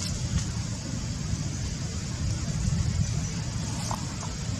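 Steady low outdoor rumble with an even hiss above it, and two faint short chirps about four seconds in.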